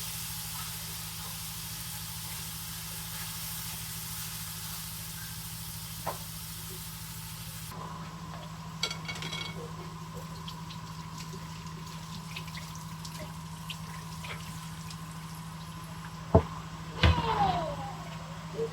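Sausages sizzling in a frying pan, with scattered light clicks of a utensil as they are turned. The sizzle drops off sharply about eight seconds in, and two sharp knocks come near the end.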